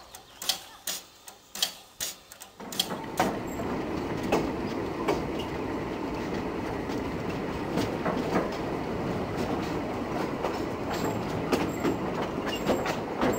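Sharp ticking clicks, about two a second, then from about two and a half seconds in a narrow-gauge railway carriage running along: a steady rumble of wheels on rail with scattered clicks and clatter of the wheels over rail joints.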